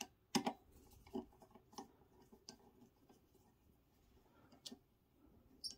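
Hand screwdriver turning the screw that fastens a monitor stand's base to its neck, giving a run of faint, irregular clicks and ticks, the loudest about half a second in.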